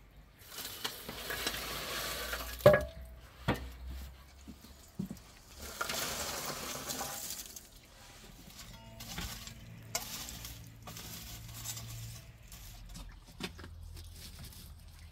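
Metal shovel scraping over a concrete barbecue bed and tipping out lumps of burning charcoal, the embers tumbling and clinking in several spells. A sharp clank about two and a half seconds in is the loudest sound.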